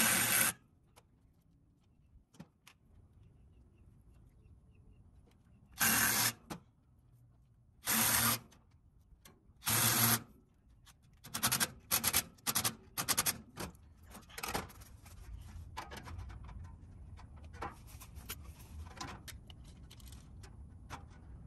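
Cordless drill-driver running bolts through the fan grille into a replacement condenser fan motor. It runs in separate bursts of about half a second, at the start and around six, eight and ten seconds, then in a quick string of shorter bursts.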